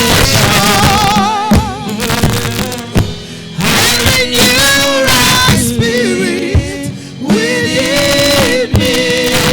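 Gospel worship song: a voice singing long, wavering notes with vibrato over a band, with drum hits.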